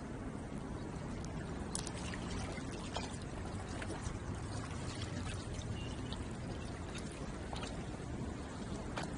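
Water washing and lapping at a shoreline: a steady wash with scattered light clicks and splashes.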